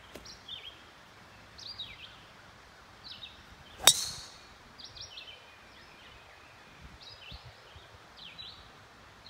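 Golf tee shot: a club strikes the teed ball once, about four seconds in, a sharp crack with a brief ringing tail. Birds chirp in short repeated calls throughout.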